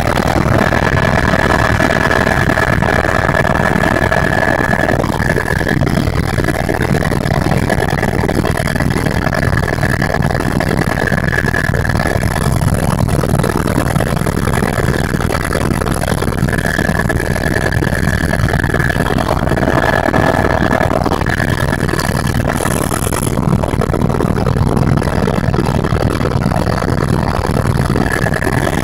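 Helicopter engine and rotor noise heard from inside the cabin in cruising flight: a loud, steady drone with a high whine that comes and goes.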